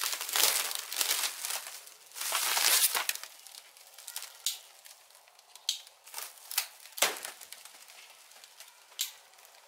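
Plastic stretch wrap being cut and pulled off a cardboard shipping box. It crinkles and rustles in loud bursts for the first three seconds, then gives sporadic sharp crackles.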